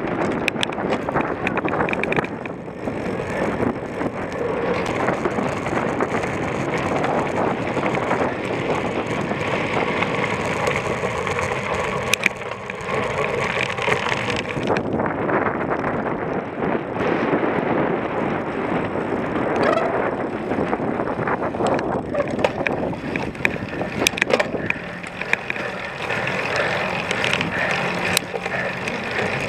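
Cyclocross bike being ridden hard over rough ground: a continuous rattle and rush of tyres, frame and drivetrain, with scattered sharp clicks and knocks.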